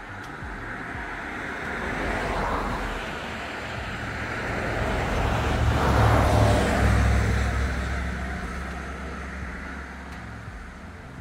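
Road traffic passing close by: tyre and engine noise from one vehicle swells and fades about two seconds in, then a louder one with a deep rumble passes around six seconds in.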